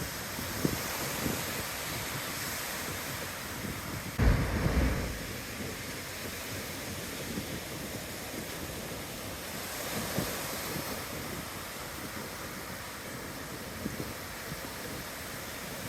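Ocean surf washing steadily onto a beach, with wind buffeting the phone's microphone; one loud low buffet of wind comes about four seconds in.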